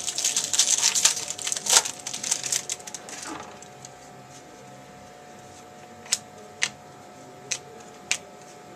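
Football trading cards and their pack wrappers being handled: about three seconds of dense crinkling and rustling, then four light clicks spread over the last few seconds.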